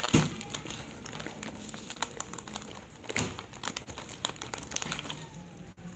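Irregular soft crackling and clicks.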